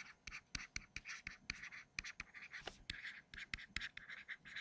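Stylus tapping and scratching on a tablet screen while block letters are handwritten: a quick run of short taps and brief scratchy strokes, several a second.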